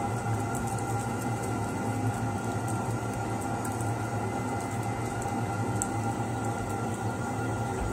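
A steady machine hum, unchanging in level, with faint small clicks scattered over it.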